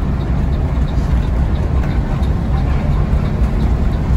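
Intercity bus engine and road noise heard from inside the cabin while driving: a steady low rumble, with faint ticking about three times a second.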